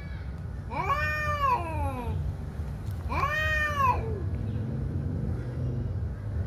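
Two male cats in a standoff yowling at each other: two long wavering yowls that rise and fall in pitch, one about a second in and another about three seconds in.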